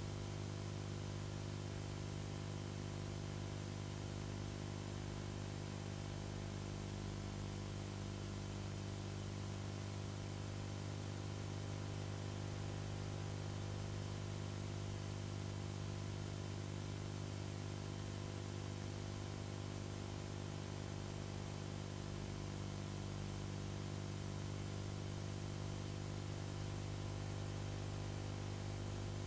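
Steady hum with constant hiss: background noise of an old film soundtrack with no other sound on it.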